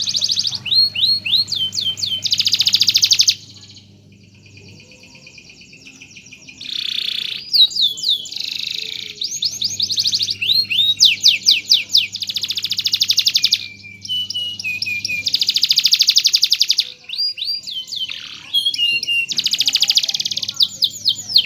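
Domestic canary singing in long bursts of rapid trills and rolls, with rising whistled sweeps between them. There is a pause of about three seconds a few seconds in.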